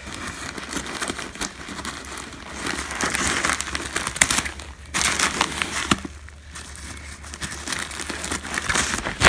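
Plastic poly-mailer bag crinkling and rustling as it is handled and cut open with scissors, in irregular spells with scattered clicks, loudest in the middle.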